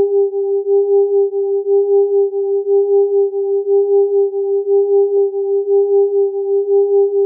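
Electronic sine tones at three close frequencies beating against each other. A steady mid-pitched tone, with a fainter higher one, pulses in loudness several times a second in an uneven pattern.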